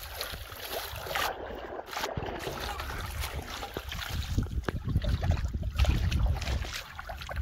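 Shallow muddy water splashing and sloshing as a large carp thrashes and a person wades through it, with wind buffeting the microphone as a low rumble.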